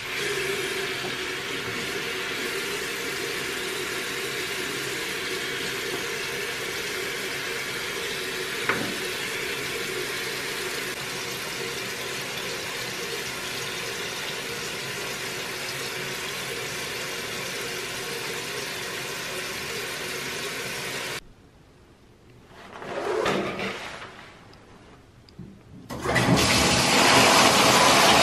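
Bathroom sink tap running water steadily for about twenty seconds, then stopping suddenly. After a short pause and a brief swell, a louder rush of water starts near the end as the bathtub faucet is turned on.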